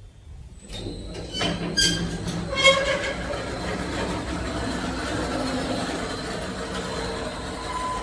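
KMZ passenger lift setting off in its shaft with a few sharp clanks, then a steady travelling rumble and rattle.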